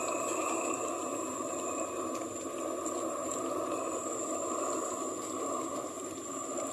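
Broth with pork cracklings boiling in a rice-cooker pot, a steady bubbling hiss.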